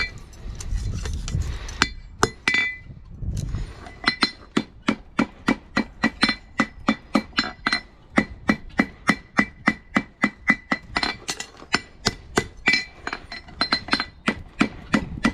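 Farrier's hammer striking metal in a steady rhythm, about three blows a second, each with a short high metallic ring; a few scattered taps come first, and the steady hammering starts about four seconds in.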